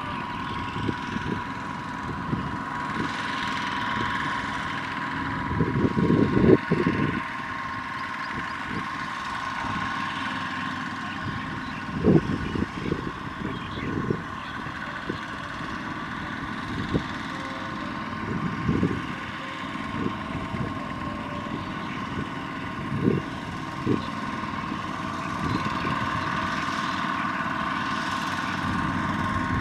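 Two-wheel walking tractors' diesel engines running steadily as they haul trailers of rice sacks through mud, with a few short low thumps.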